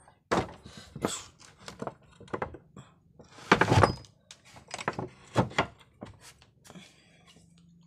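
A series of irregular thuds and knocks, about a dozen, with the loudest cluster a little past halfway.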